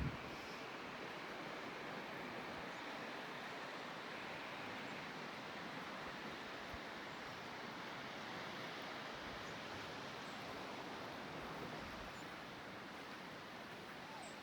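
Waterfall, a steady rush of falling water, with a couple of brief low knocks right at the start.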